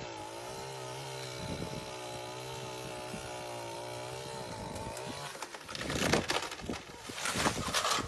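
Chainsaw running steadily as it cuts into a tree. About five and a half seconds in the engine sound gives way to a series of loud crashes and cracks as the cut section breaks off and falls through the branches onto the road.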